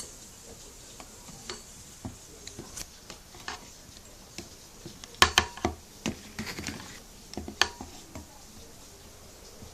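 Small bronze USB desk fan being handled: scattered light clicks and metallic knocks, loudest in a quick cluster about five seconds in and once more about two seconds later.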